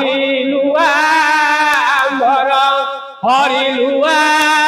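A man chanting a verse of the Odia Bhagavat in a slow, melodic recitation, holding long notes with wavering ornaments. About three seconds in he breaks off briefly for breath, then starts the next phrase on "Hari".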